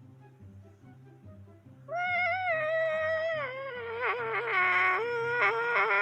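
Soft background music, then about two seconds in a loud, long wailing yowl starts, its pitch sliding down and wavering, still going at the end.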